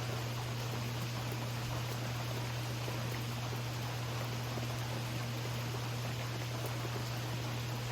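Steady rain falling, an even hiss with no thunderclaps, over a constant low drone.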